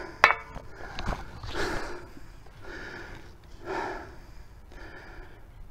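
A man breathing hard through the mouth in a steady rhythm of about one breath a second.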